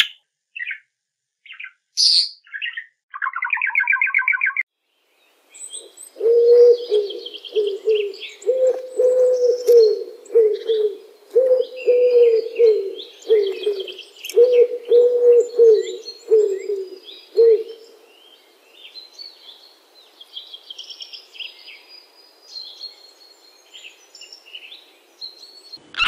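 An oriental magpie-robin sings a few short whistled phrases and a trill, then after a brief pause a flock of feral rock pigeons coos over and over with wing flaps and higher chirps mixed in. About eighteen seconds in the cooing stops and only faint scattered chirps remain.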